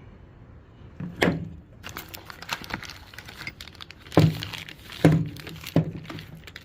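Plastic packaging rustling and crinkling as tailgate-assist shocks are pulled out by hand, with four sharp knocks that each ring briefly.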